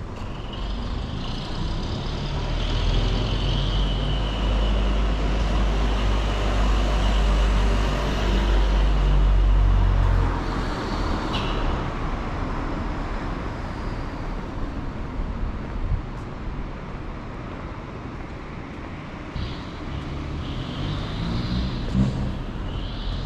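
Busy street traffic passing, with the low rumble of a heavy vehicle's engine swelling for about the first ten seconds and then fading. Another engine comes in near the end.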